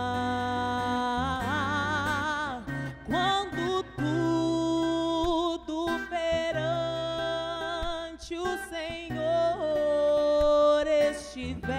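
Gospel song: a woman's voice singing long held notes with vibrato, with an acoustic guitar accompanying.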